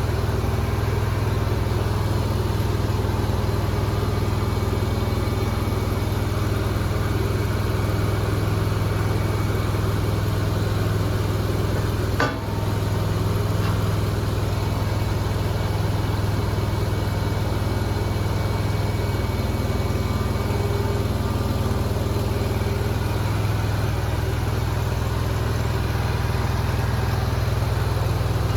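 Nuoman mini skid steer's engine running steadily, with one sharp click about twelve seconds in.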